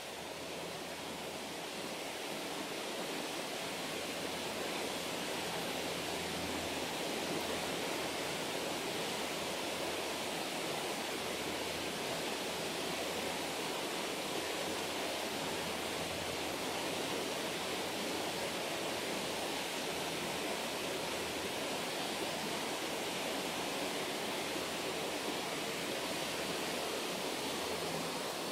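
Steady rushing of running water, an even noise with no breaks.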